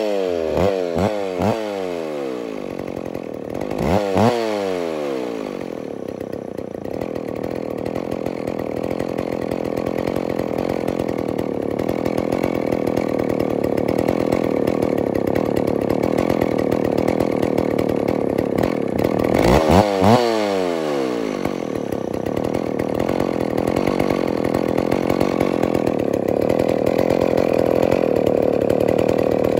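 McCulloch Pro Mac 610 two-stroke chainsaw running on its first start. It revs in quick blips at the start, revs again about four seconds in and about twenty seconds in, and runs steadily in between, slowly speeding up. The saw won't idle.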